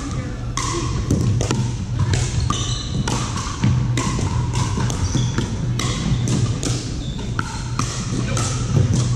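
Indoor pickleball play in a large gym: plastic balls pocking off paddles and the floor in quick irregular hits, from this court and neighbouring ones, with short sneaker squeaks on the hardwood. A steady low hum runs underneath.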